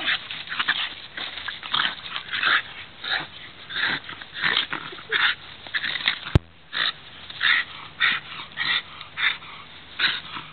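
Jack Russell terrier breathing hard in short, breathy bursts, about one or two a second, as it fights an armadillo. There is one sharp click a little past six seconds.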